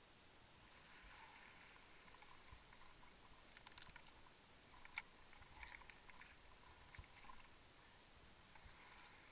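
Faint, scattered underwater clicks and crackles of cobbles and pebbles knocking as gloved hands touch the rocky bottom, with one sharper click about five seconds in.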